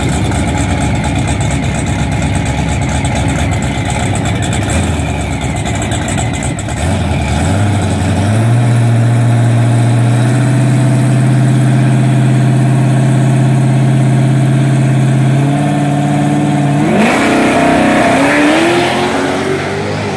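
Dodge Dart drag car's engine running with an uneven, lumpy idle, then brought up to a steady held rpm for about nine seconds. About three-quarters of the way through it launches, its revs climbing fast and rising again near the end as it pulls away.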